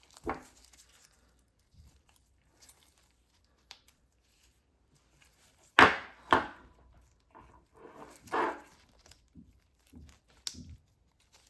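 Light clicks, taps and scrapes of stainless steel orthodontic wire and pliers being handled while the bent clasp is checked against a dental model, with a sharper knock about six seconds in and a cluster of scuffs around eight seconds.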